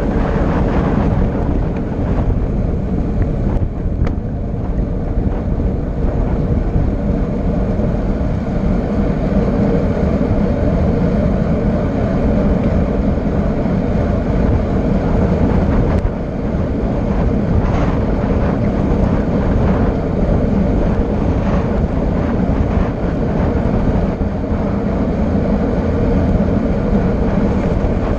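Rushing wind buffeting the microphone, with a steady rolling rumble and hum from the tyres on pavement, during a fast downhill descent.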